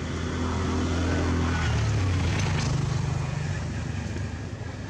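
A motor vehicle's engine passing nearby, with a steady low hum. It grows louder, its note stepping up in pitch a little under two seconds in, then fades.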